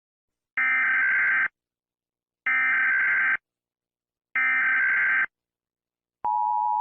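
Emergency Alert System SAME header: three identical buzzy data bursts of about a second each, two seconds apart, marking the start of an emergency alert. Near the end the steady two-tone EAS attention signal begins.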